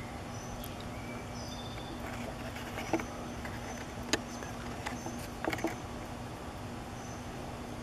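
Outdoor ambience: a steady low hum under short, faint, high bird chirps that come and go, with a few sharp clicks about three seconds in, just after four seconds, and around five and a half seconds.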